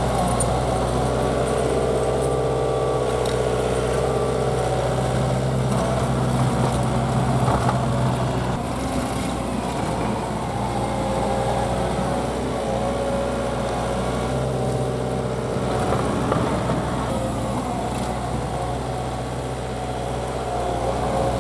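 Takeuchi TL240 compact track loader's diesel engine running under load as it pushes fill. The engine note shifts as the work changes, easing off about a third of the way in and picking up again past the middle.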